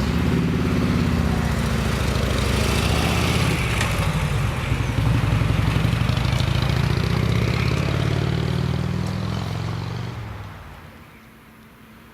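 A heavy engine running with a low, steady hum and a rush of noise, fading away about ten seconds in.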